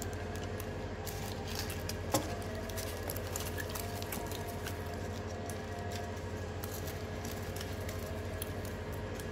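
Small crackles and clicks of a foil-wrapped toasted sandwich being torn and eaten, one sharper click about two seconds in, over a steady low hum.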